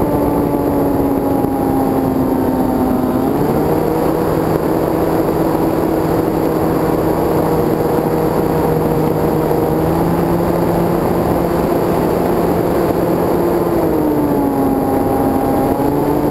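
Electric motor and propeller of an E-flite Carbon-Z Yak 54 RC plane, heard from a camera on the airframe: a steady whine over rushing air. The pitch steps up about three seconds in as the throttle is opened, and drops back near the end.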